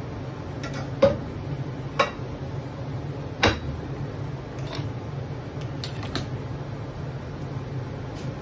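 Kitchen things being handled: three sharp knocks in the first few seconds, the first the loudest, then a few lighter clicks. A steady low hum runs underneath.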